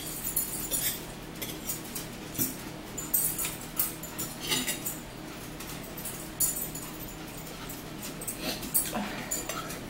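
Eating sounds at a table: a fork and knife clicking and scraping irregularly on a plate, with chewing.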